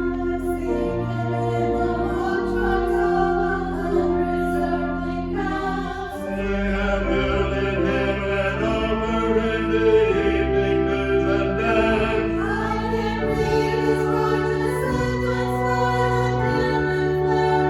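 A hymn sung by voices to organ accompaniment, with the organ's held chords changing step by step under the singing.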